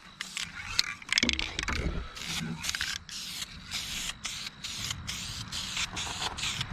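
Aerosol spray paint can sprayed in a quick run of short hissing bursts with brief gaps between them.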